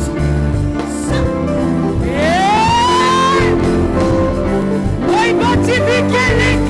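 Live gospel praise-band music with steady bass and chords, and a long rising sung note about two seconds in.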